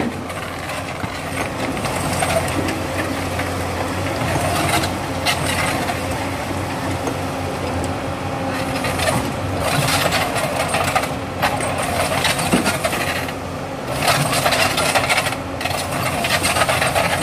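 Crawler excavator's diesel engine running steadily as its bucket works in the sand, with gritty scraping and rattling of sand and stones that grows louder in stretches around the middle and again near the end.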